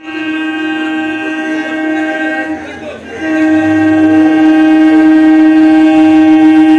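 Horn of an approaching electric local train (EMU): a long steady blast, a short break about three seconds in, then a second long blast.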